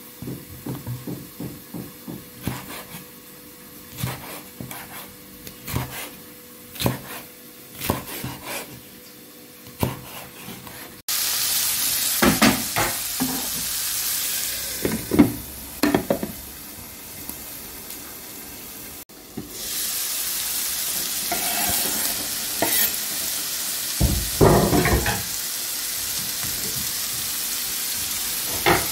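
Knife knocking on a wooden cutting board as a red bell pepper is cut into strips, about a dozen uneven knocks over the first ten seconds. Then green beans and onions sizzling in olive oil in a frying pan, a steady hiss with the knocks and scrapes of stirring.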